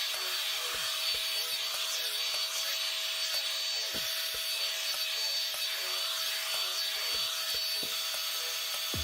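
Revlon One-Step hair dryer brush running with a steady whine and blowing hiss as it is worked through hair.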